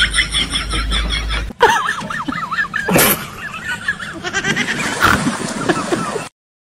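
People laughing in quick, wavering bursts, with one sharp knock about three seconds in.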